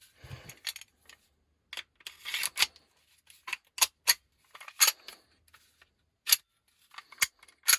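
Irregular sharp clicks and short scrapes of an airsoft Glock 19 pistol's parts being worked together by hand, the new parts fitting stiffly.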